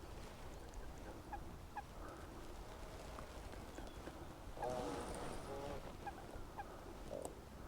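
Waterfowl calling on the lake: short scattered calls, with one longer call about five seconds in, over a low steady rumble.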